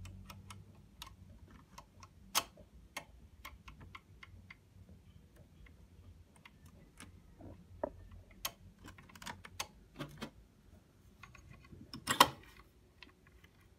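Irregular small metal clicks and taps as a bobbin case is fitted into the shuttle of a vintage Butterfly sewing machine, with a louder metal clack near the end as the slide plate is pushed shut.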